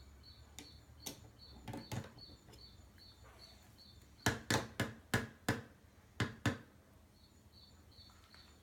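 A series of sharp knocks or taps: a few scattered ones, then about seven louder ones in quick succession in the middle. Under them runs a faint high chirp that repeats about three times a second.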